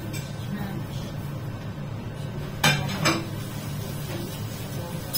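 Two sharp clinks of hard utensils about half a second apart, each with a brief ring, over a steady low hum.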